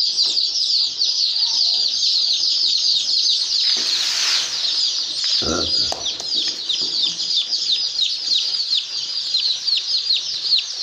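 A large flock of day-old chicken chicks peeping nonstop, a dense chorus of short, high, falling cheeps. A brief rustle comes about four seconds in.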